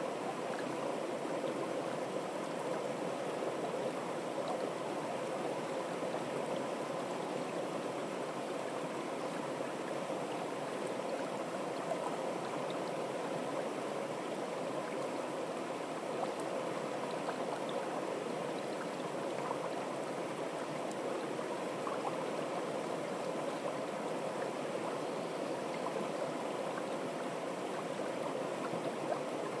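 Fast, shallow stream rushing over rocks in white-water rapids: a steady, unbroken rush of water.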